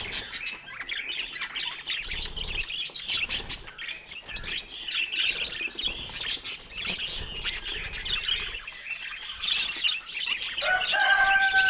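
Budgerigars chattering with dense, rapid chirps and warbles. Near the end a steady held tone comes in.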